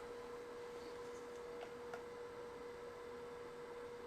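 A faint, steady electrical hum on one tone, with two light clicks a little over a second and a half in.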